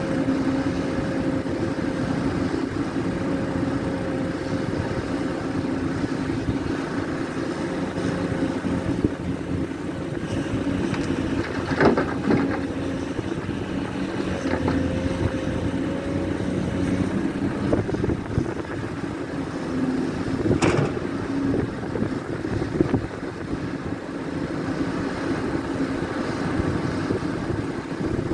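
Caterpillar 336 hydraulic excavator's diesel engine running steadily under working load while it digs and loads a dump truck, its pitch wavering slightly. Sharp knocks come about twelve seconds in and again around twenty-one seconds in.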